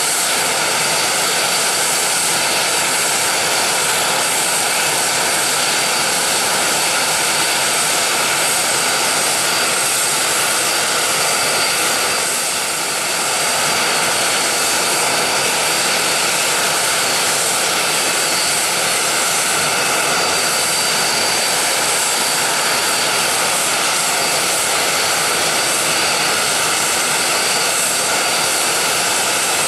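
Alenia Aermacchi T-346A jet trainer's twin turbofan engines running steadily on the ground: a loud, even jet hiss with a steady high whine. The sound dips briefly about halfway, then holds.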